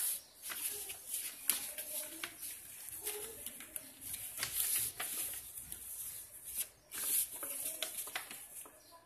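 A sheet of paper rustling and crinkling as hands fold it and press the creases down, in short scratchy strokes with small crackles between them.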